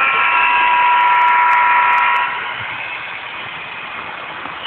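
Sound-equipped HO scale Santa Fe diesel locomotive playing its horn through the model's speaker: one steady blast of several notes that stops about two seconds in. Quieter running noise carries on after it.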